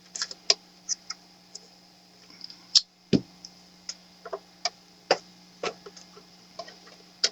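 Irregular sharp clicks and light taps, about a dozen, from hands handling the opened 858D hot-air rework station's case and fuse.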